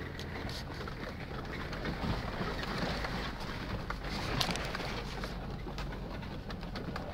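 Off-road vehicle's engine running steadily at low revs as it crawls over a rocky dirt track, heard from inside the cab, with scattered short knocks and rattles.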